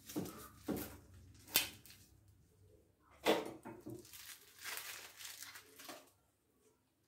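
Metal cleaver cutting through a plastic-wrapped block of meat onto a wooden board, with a few sharp knocks in the first two seconds and a louder knock about three seconds in. Then the plastic wrap crinkles and tears as it is handled and pulled off the block.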